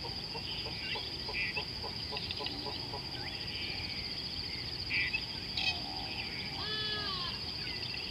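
Riverside bush ambience: a steady, high insect trill, with scattered bird chirps and calls over it. A quick run of low pulsed notes comes in the first couple of seconds, and a louder call that rises and falls in pitch comes about seven seconds in.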